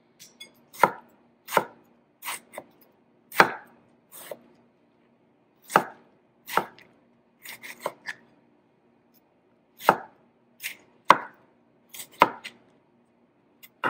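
Knife dicing tomatoes on a cutting board: irregular sharp chops, about one or two a second, some coming in quick clusters of two or three.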